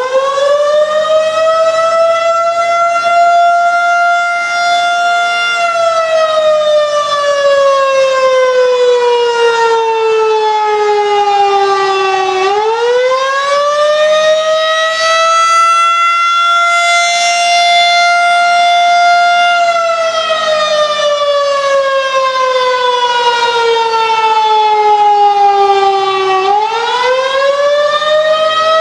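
Federal Signal 2001-130 rotating outdoor warning siren sounding the attack signal. Its single tone finishes winding up, holds high for about five seconds, then slowly slides down for about seven seconds and winds back up. The rise-and-fall cycle repeats twice.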